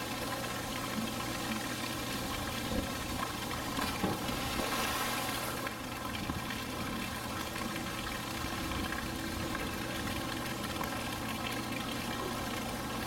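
Steady rush of running water in a polar bear pool, with a brief knock about four seconds in.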